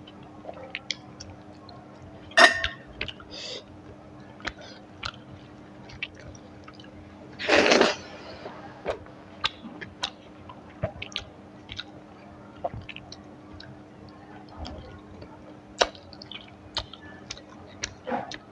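Close-miked eating: chewing with many small wet mouth clicks and smacks. There is a short louder burst about two and a half seconds in, and a longer, louder noisy burst at about seven and a half seconds.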